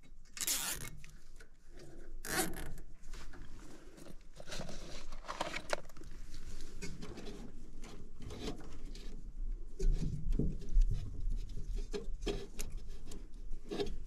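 Nylon zip ties being pulled tight by hand: a string of short, irregular zipping rasps. A low rumble comes in about ten seconds in.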